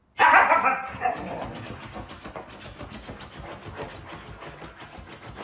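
A husky gives a loud vocal outburst about a second long, its pitch bending up and down. It then scrapes quickly and repeatedly at a fabric cushion with its front paws.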